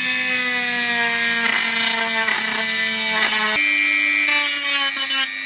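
Ryobi EHT150V rotary tool with a sanding drum, its motor whining steadily at high speed while it grinds a notch into the helmet's plastic chin guard, with rough scraping as the drum bites in. Its pitch steps up slightly a little past halfway.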